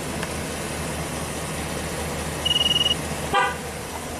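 A TPMS scan tool gives a high, steady electronic beep of about half a second as it triggers a tire pressure sensor. A moment later the Chevy Silverado 2500HD's horn gives one short chirp, the GM signal that the sensor has been learned.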